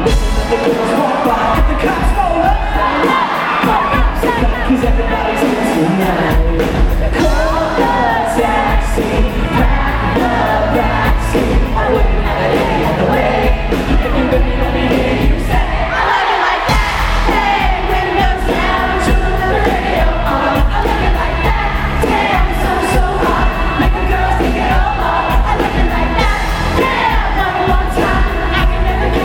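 Live pop-rock band playing with a lead singer, over crowd noise from the audience. The bass is heavy and constant, and the drums hit steadily.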